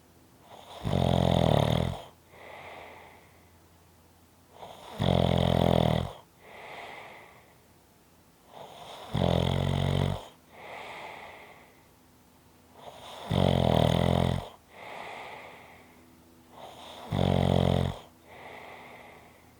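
A person snoring at a slow, even rhythm: five loud snores, about one every four seconds, each followed by a softer breath.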